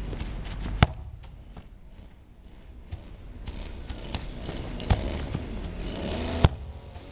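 A football kicked back and forth on a grass lawn. Sharp thuds of foot striking ball come about a second in, near five seconds and again near six and a half seconds, with a few fainter knocks between.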